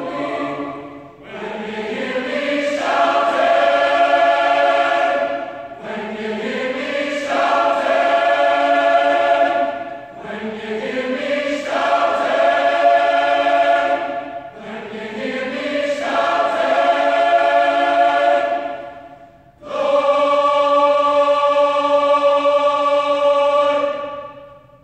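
Boys' choir singing in several parts: five phrases, each opening with a rising slide into a loud held chord, the last chord sustained longest before a clean cutoff near the end.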